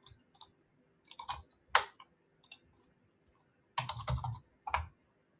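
Computer keyboard typing and mouse clicks: scattered sharp taps, in short groups about a second in and again near the end.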